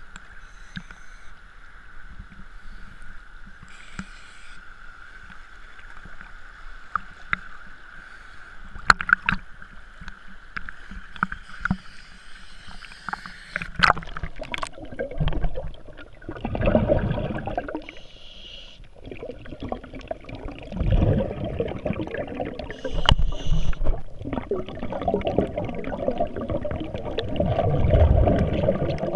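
Water sloshing and splashing against a GoPro in its waterproof housing at the surface, with scattered sharp clicks; about halfway through the camera goes under and the sound turns to muffled underwater surges of water and gurgling that swell every few seconds.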